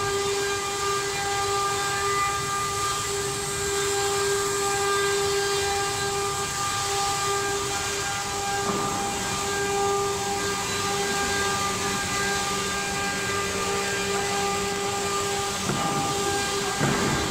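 CNC router spindle running with a steady high whine over the hiss of cutting, with a few brief rising sweeps about halfway through and near the end.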